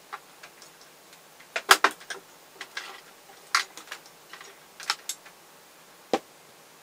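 Scattered small clicks and taps from handling work: fingers working a small electronic component and its wire leads. There is a cluster of clicks about one and a half to two seconds in, a few more through the middle, and a last single click near the end.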